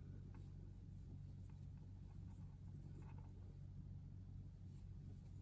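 Faint scratching and rustling of yarn being drawn through stitches with a crochet hook as half double crochet stitches are worked, over a low steady hum.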